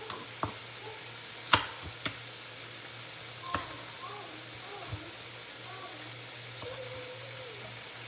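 Chicken breast pieces sizzling steadily in a frying pan, with a few sharp knife strikes on a cutting board, the loudest about a second and a half in.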